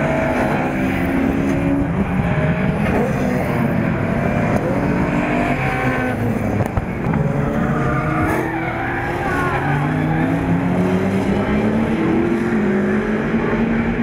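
Historic touring race cars lapping a circuit, several engines sounding at once, their notes climbing and dropping as they accelerate and change gear.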